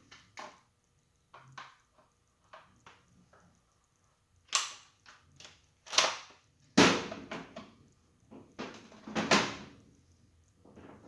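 Parts of a gear shifter assembly clicking and knocking as the top part is aligned and pushed into place: a few light taps, then several louder sharp snaps in the second half.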